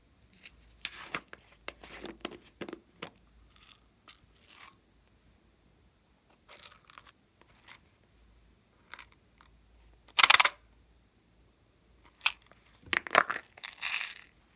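Hands handling small plastic slime-supply tubs and opening their lids: scattered scrapes, clicks and crinkles, with a louder rasp about ten seconds in and a cluster of them near the end.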